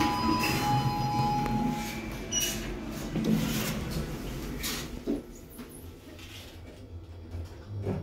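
Kone passenger lift's stainless-steel doors closing, with several clicks and knocks. The surrounding noise falls away about five seconds in as the doors shut, and a dull thump comes near the end as the car sets off upward.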